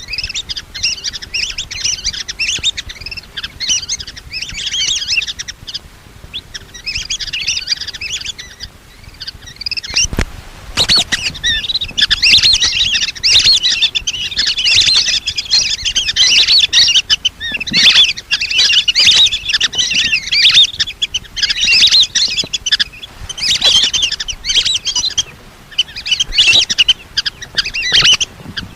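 A flock of lesser whistling ducks calling: dense, high, wheezy whistled chirps in overlapping bursts, thickest in the second half, as used for a hunting lure call. A brief knock about ten seconds in.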